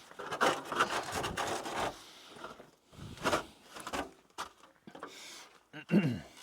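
Irregular rubbing and scraping noises, loudest in the first two seconds. A short creak falls in pitch near the end.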